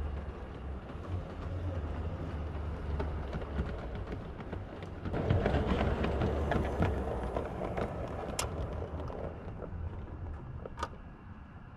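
7mm-scale model train rolling along its track over a steady low hum. The wheels' rumble grows louder about five seconds in as the coaches pass close by, and there are two sharp clicks near the end.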